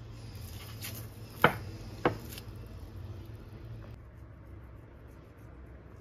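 Glass baking dish handled, giving two sharp knocks about half a second apart over a low steady background hum.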